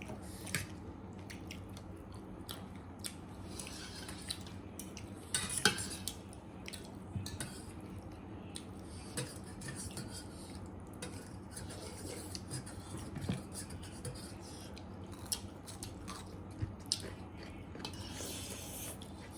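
Eating sounds: cutlery clinking and scraping against bowls and plates of noodle soup and chilli pork, in scattered light clicks, with a louder noisy scrape about five and a half seconds in and a longer hissing stretch near the end.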